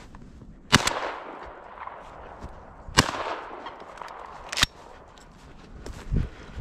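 Three shots from a 20-gauge Remington 11-87 semi-automatic shotgun, each a sharp crack with a short echoing tail. The second comes about two seconds after the first, and the third a second and a half after that.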